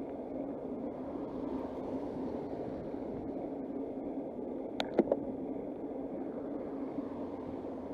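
Steady rushing noise of a bicycle ride, wind and rolling noise, with two sharp clicks in quick succession about five seconds in.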